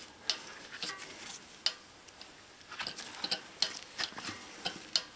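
Hand-turned bearing press winding down on a DT Swiss hub, pressing the drive-side cartridge bearing into its seat: scattered light clicks and ticks at irregular spacing.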